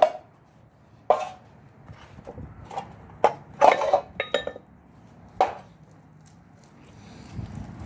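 Metal objects knocking and clinking together: about six sharp, separate strikes, one about four seconds in ringing briefly with a high metallic tone.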